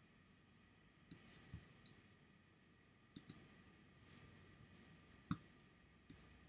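Faint computer mouse clicks, about five of them and irregularly spaced, including a quick double click about three seconds in.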